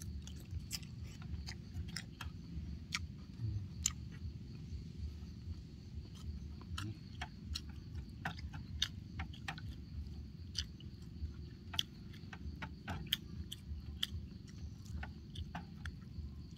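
A person eating noodle soup, with irregular sharp chewing and mouth clicks over a steady low rumble.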